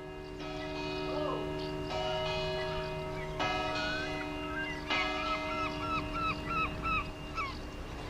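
Church bell tolling, struck about every second and a half, each stroke ringing on under the next. In the second half a gull gives a quick series of short calls over the bell.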